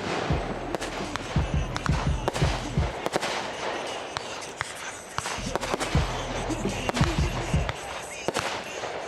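Fireworks display: aerial shells bursting in a rapid string of sharp cracks and deep booms, with background music playing.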